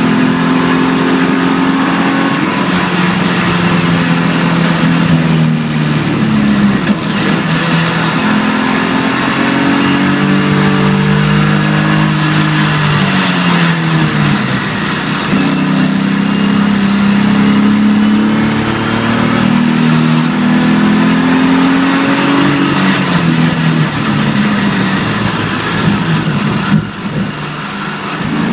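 BMW 325ti Compact's 2.5-litre straight-six, heard inside the cabin, revving up and down through the gears at speed, with the revs dropping several times for corners, over steady road noise.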